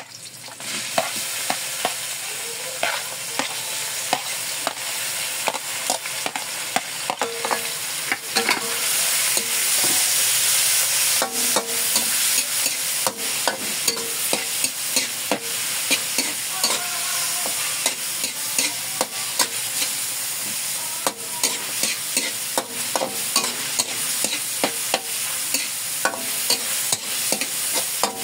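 Diced meat and onions sizzling in hot oil in a wok. The sizzle starts up about half a second in as the food goes into the pan and grows louder after about eight seconds. The spatula scrapes and clacks against the wok again and again as the food is stir-fried.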